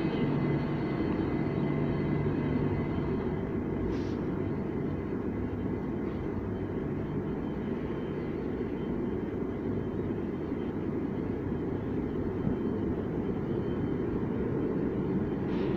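Steady low rumble of an underground station platform beside a standing Victoria line train, with a faint low hum that fades about three seconds in and two short clicks.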